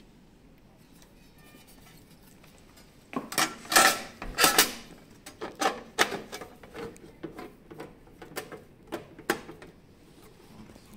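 Sheet-metal module cover and hand tools clattering and clicking as they are handled and fitted onto the anesthesia machine. A quick run of clatters starts about three seconds in and is loudest around four to five seconds, followed by scattered single clicks.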